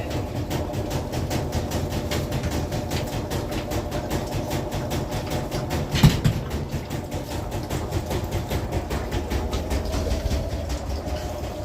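Maytag MVW6230HW3 top-load washing machine starting its spin cycle: a steady low hum under a fast, even rhythm of clicks as the drum picks up speed, with a single sharp knock about six seconds in.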